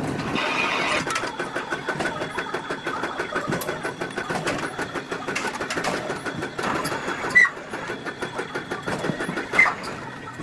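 Factory machinery running with a fast, even clatter, with two sharper knocks in the second half.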